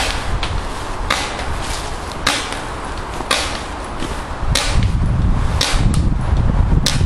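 Paintball markers firing single shots, sharp pops about once a second, seven or eight in all. Under them runs a low rumble that grows louder a little over halfway through.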